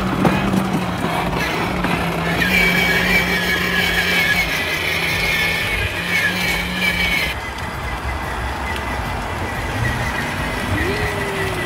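Battery-powered ride-on toy car's electric motors humming steadily as it drives along a concrete sidewalk.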